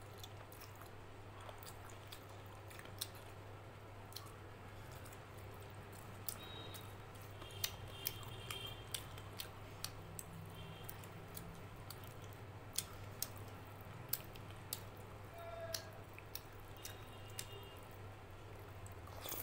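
Close-up eating sounds: chewing, and wet squishing as rice mixed with curry is worked by hand, with scattered sharp clicks. A steady low hum sits underneath.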